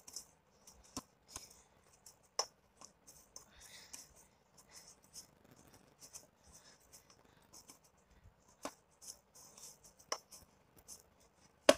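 Hands kneading soft flour dough, making scattered light taps and rustles, with one sharper knock near the end.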